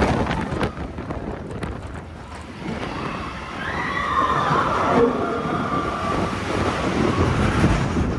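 Expedition Everest roller coaster train rattling along its track during the drop, with wind rushing over the microphone.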